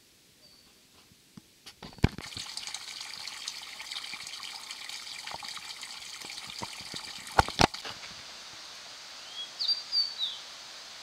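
Spring water running from a pipe spout and splashing into a small rock pool, a steady splashing that starts about two seconds in, with a few sharp clicks. Near the end a bird gives a few short chirps.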